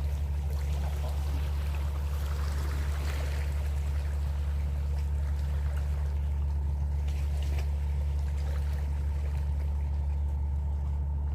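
Boat engine running with a steady low drone, with faint trickling water sounds over it.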